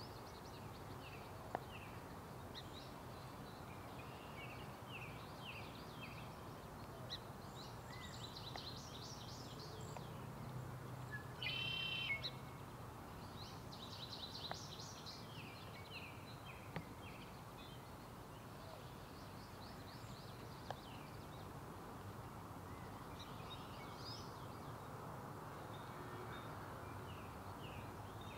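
Birds calling in short, high chirps and quick note series, with one louder, harsh call about twelve seconds in, over a steady background hiss.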